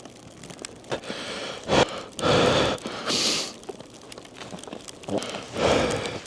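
A person breathing hard in uneven gasps, with crunching and scraping in snow between the breaths.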